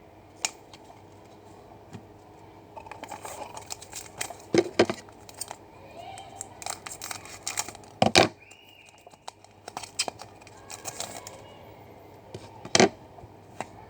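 Trading card packs being torn open and their wrappers crinkled as the cards are handled: irregular rustling and crackling, with a few loud sharp tears.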